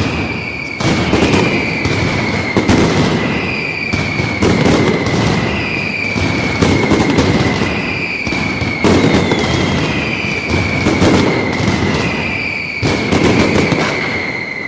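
Fireworks display going off continuously: clusters of sharp bangs and crackles every second or two, with a high falling whistle repeating about every second and a half.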